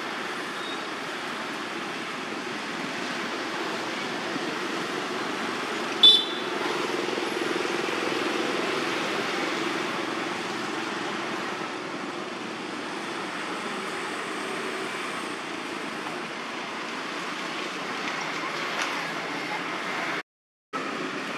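Steady outdoor background noise, with one sharp, brief sound about six seconds in. The sound cuts out completely for a moment near the end.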